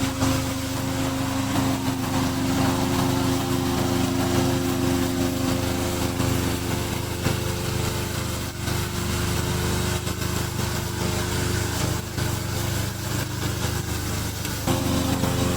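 Engine of a remote-control tracked slope mower running steadily, a continuous engine hum; its tone changes slightly about three seconds in and again near the end.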